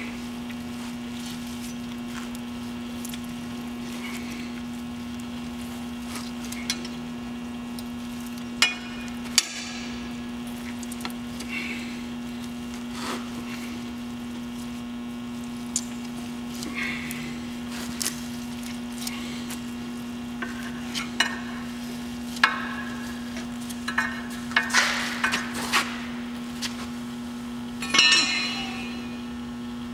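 Metal hand tool clinking and scraping against a locomotive journal box while an oil-soaked journal pad is packed in, with wet squishing and scattered sharp clicks that grow busier in the last several seconds. A steady low hum runs underneath.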